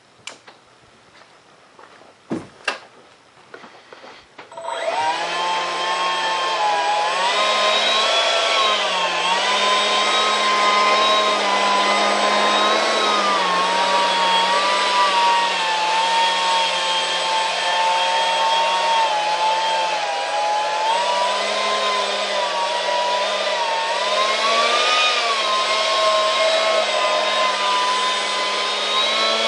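Electric ducted fan (a Detrum 70 mm EDF unit) spinning up about four and a half seconds in and running steadily with a whine over a rush of air, its pitch wavering slightly as the throttle changes. A few faint clicks come before it starts.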